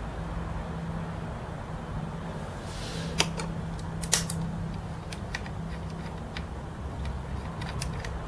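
Push-button on/off switch of a Farnell E30/1 bench power supply clicking as it is pressed, with a sharp click about three seconds in and another about four seconds in, then a few lighter ticks from handling the front-panel controls. A steady low hum runs underneath.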